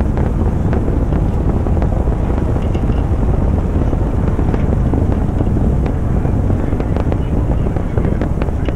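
Titan III rocket launch sound: a steady, loud noise strongest in the low end, with scattered sharp crackles, as the rocket climbs.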